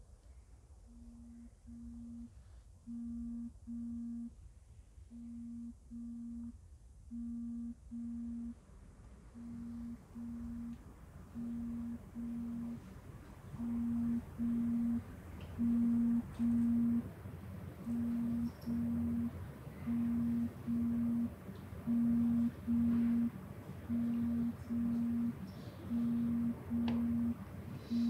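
A phone buzzing in pairs of short, low pulses, about one pair every two seconds, growing louder.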